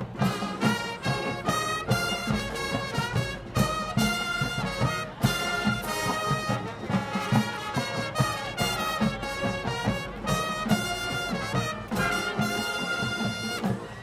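Marching band playing a brass-led arrangement from a Motown hits medley: trumpets and trombones in short punchy figures and held chords over steady low brass and drums.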